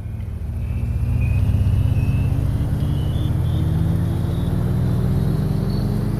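A vehicle engine-like drone that fades in and climbs slowly and steadily in pitch, as in gradual acceleration.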